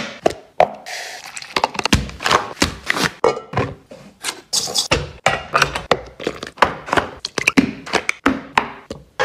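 A quick run of close-up kitchen prep sounds: a string of thunks, taps and rustles as ingredients are handled, including a jar, flour in a stainless steel bowl and butter unwrapped from its paper.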